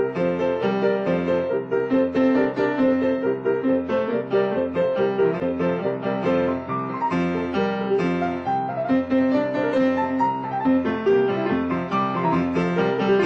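Grand piano played four hands, two pianists side by side at one keyboard, in a playful duet arrangement of a Jewish song tune. It is a steady, continuous stream of notes.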